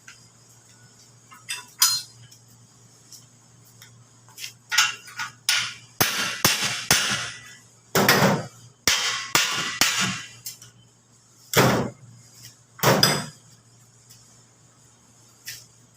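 Irregular metal strikes and clanks of tools on a fryer machine's metal parts, with short ringing after some hits. The hits are sparse at first, crowd together between about six and ten seconds in, then come singly twice more with quiet gaps between.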